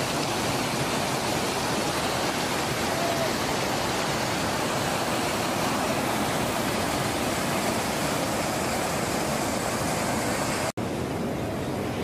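Steady rushing of a waterfall, water pouring and splashing without a break. It cuts out for an instant near the end.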